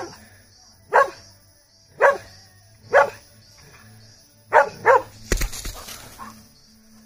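A dog barking at a monitor lizard: single sharp barks about once a second, then a quick double bark about four and a half seconds in. A short burst of rustling noise follows.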